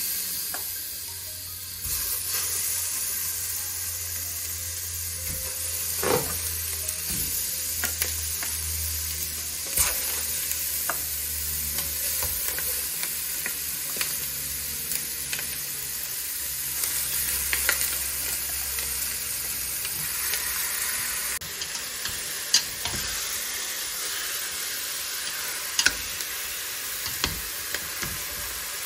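Raw chicken pieces sizzling in hot oil in a stainless steel pot as they are added and turned with chopsticks: a steady frying hiss, with occasional sharp knocks against the pot.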